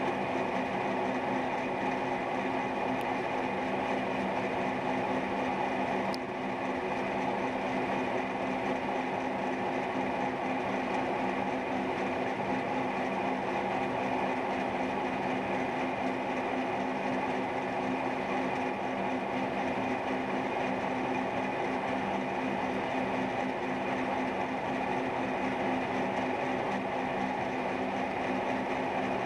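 Cincinnati milling machine running steadily under cut, a steady hum with several steady gear-like tones, as its cutter mills a semi-hemispherical socket into a steel part while the rotary table is turned.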